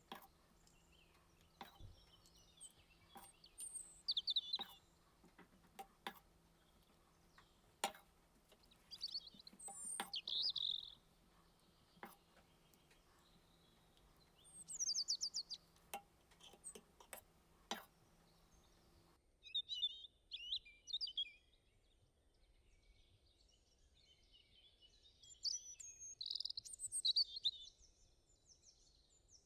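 Birds chirping in short repeated phrases, with scattered light clicks and a faint low hum that cuts off abruptly about two-thirds of the way through.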